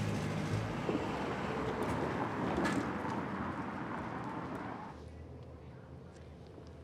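Street traffic noise that fades out about five seconds in, leaving a quieter low steady hum.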